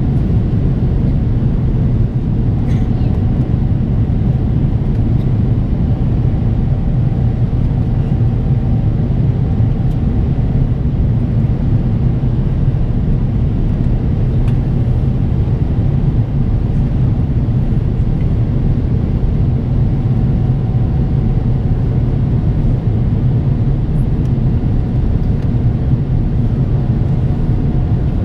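Steady cabin noise of an Airbus A350-900 climbing out after takeoff, heard inside the cabin from a window seat behind the wing: the Rolls-Royce Trent XWB engines and the airflow past the fuselage make a loud, even rumble, with a faint steady hum above it.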